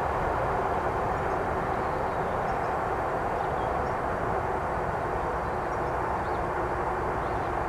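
Steady, even rumble of distant vehicle noise, with no change in level.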